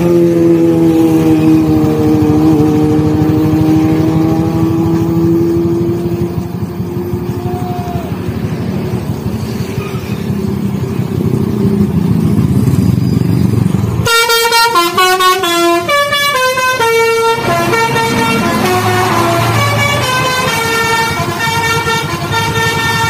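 Bus horns over vehicle noise. First comes a low, sustained horn tone that sags and rises again in pitch over several seconds. About two-thirds of the way through, an abrupt cut brings in a telolet Basuri multi-tone musical horn playing a quick tune of changing notes.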